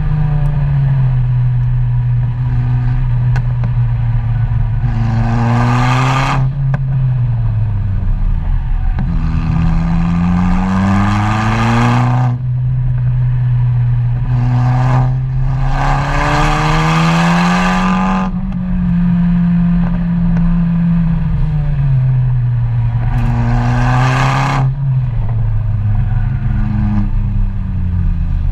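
Vehicle engine running continuously and pulling hard four times, its note climbing under full throttle and dropping away each time the throttle closes, as in repeated acceleration out of bends.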